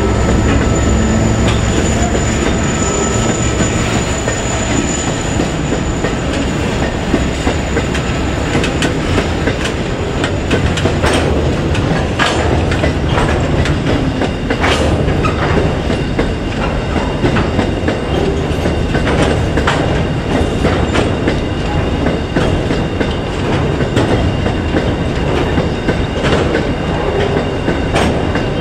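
Long freight train of hopper wagons rolling past: a steady rumble of steel wheels on rail with irregular clickety-clack and knocks as wheelsets cross rail joints, and a thin high wheel squeal over the first few seconds.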